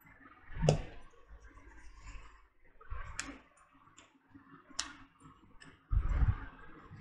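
Hands shaping a piece of soft dough into a ball between the palms: a few scattered sharp clicks and soft taps, with a heavier low thump near the end.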